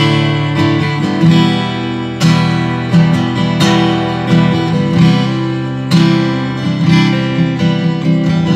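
Solid spruce-top acoustic guitar with mahogany back and sides, strummed and plucked in a chord progression. A new chord rings out about once a second, demonstrating the guitar's tone.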